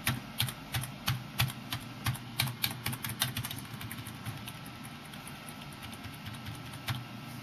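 Computer keyboard key tapped over and over, about three presses a second for some three and a half seconds, then once more near the end. This is the key-tapping during the PC's BIOS start-up screen to call up the boot menu.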